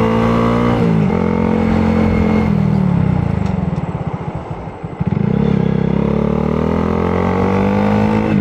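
2022 Honda Grom's 125 cc single-cylinder engine under way on the road, pitch climbing with a sharp drop about a second in. It eases off into a slow low putter around four to five seconds in, then pulls up steadily again.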